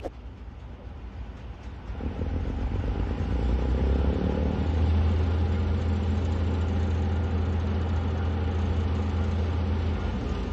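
Diesel engine of a lattice-boom crane revving up about two seconds in and then running under load with a steady low hum, easing off near the end.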